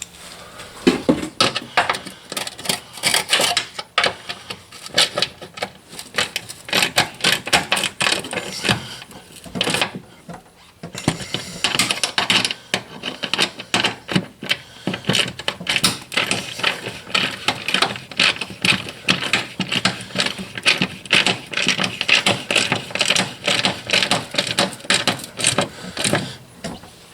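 Hand ratchet clicking in quick runs as bolts are run into a truck's fender well, with a short pause about ten seconds in.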